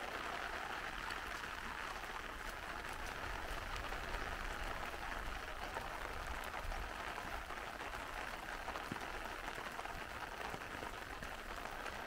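Light rain falling steadily on an umbrella, a constant hiss of many small drop ticks.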